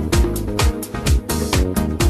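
Upbeat dance-pop backing music with a steady kick drum about twice a second over sustained synth chords, no singing.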